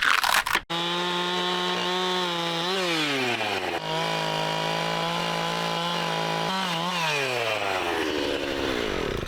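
Chainsaw running at high revs, cutting into an aspen log to see how far the rot goes. Its steady high engine note sags twice as the chain bogs in the wood and picks back up, then falls away over the last two seconds as the saw winds down. A short loud noise comes just before the saw.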